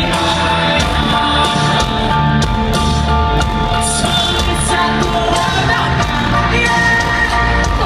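Live pop-rock band playing loudly in an arena, with drums, sustained keyboard and guitar notes, and singing, as picked up from the crowd.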